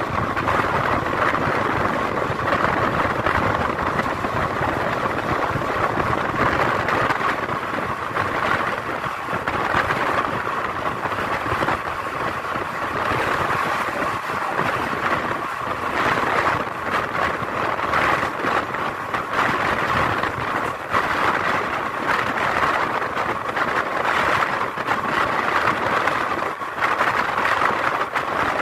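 Indian Railways passenger coach running at speed, heard from its open doorway: steady noise of wheels on the rails mixed with rushing wind.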